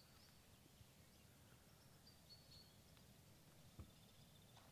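Near silence: faint outdoor ambience, with a few faint high chirps about two seconds in and one faint low knock near the end.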